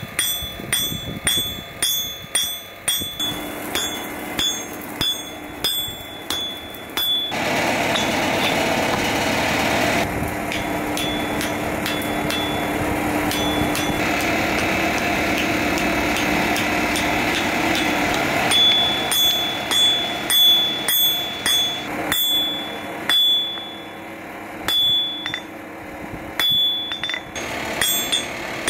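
Hand hammer striking red-hot steel on an anvil, each blow with a high ringing note, about twice a second. In the middle the hammering stops for about ten seconds under a steady rushing noise, then resumes.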